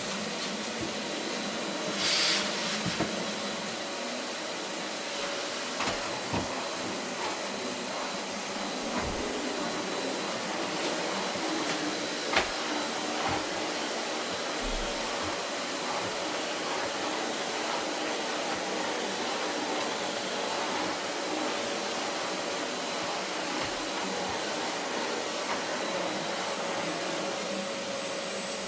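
Vacuum cleaner running steadily over carpet, a continuous whooshing hum with a steady whine, a brief louder surge about two seconds in and a few light knocks.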